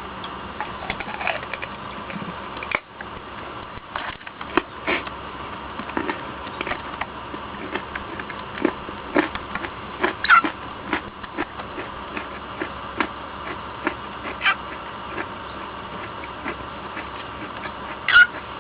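Irregular small crunching clicks of someone chewing food close to the microphone, over a steady hum, with a cockatiel giving a few short chirps about ten, fourteen and eighteen seconds in.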